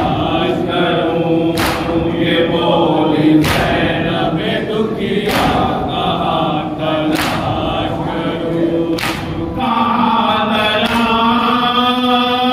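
A noha being chanted by a lead reciter with men's voices joining in, marked by a sharp unison chest-beating strike (matam) about every two seconds. From about ten seconds in, the lead voice holds one long note and the strikes stop.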